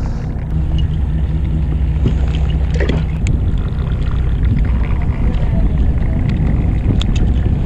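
Fishing boat's engine running steadily as a low hum, with a few light clicks about three seconds in and again near the end.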